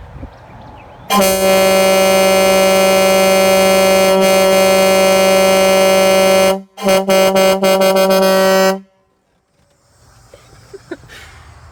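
Grover air horns on a 2000 Kenworth W900L truck sounding several steady tones together as a chord: one loud blast of about five seconds, then a quick run of short toots that cuts off sharply.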